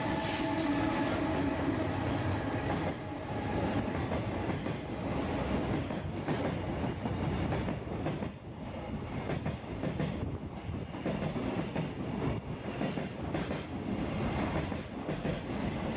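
Freight train rolling past, its wagons' wheels rumbling and clacking over the rail joints, with a steady humming tone in the first few seconds.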